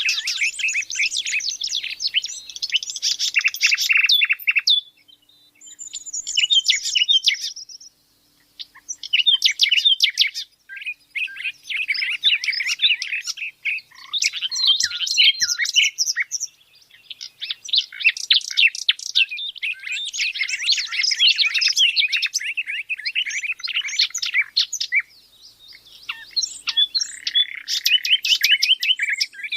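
Small birds chirping in long runs of rapid high notes, broken by a few short pauses.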